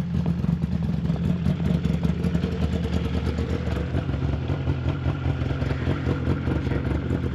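Snowmobile engine running steadily, with a low, fluttering drone.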